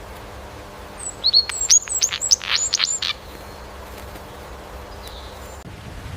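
A bird singing one short phrase of about eight quick, high notes, each sweeping sharply downward, lasting about two seconds.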